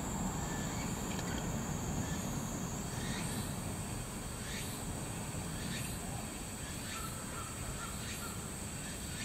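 Birds chirping with short calls repeating about once a second from about three seconds in, over a steady low outdoor rumble and a faint high whine.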